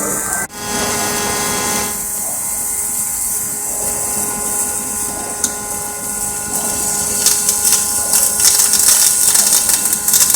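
A portable welding carriage's drive motor running with a steady whine. Dense welding-arc crackle builds up from about seven seconds in.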